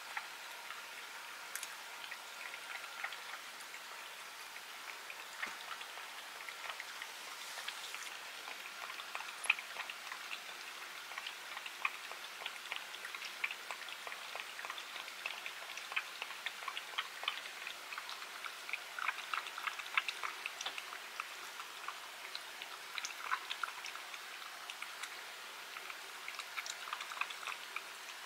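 A cat licking and chewing a wet treat from a raised ceramic bowl: a rapid, irregular patter of small wet clicks and smacks from tongue and jaw, growing busier after about ten seconds.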